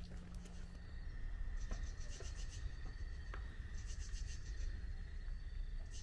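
Footsteps scuffing along a dirt and gravel path, with a steady thin high tone and two short bouts of rapid high-pitched trilling.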